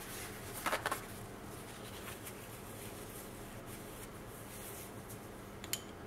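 Wax-sealing tools being handled: a quick cluster of light clicks about a second in, then a single sharp tap near the end as the copper wax-melting spoon is set into the wax melting pot. A faint steady hum underneath.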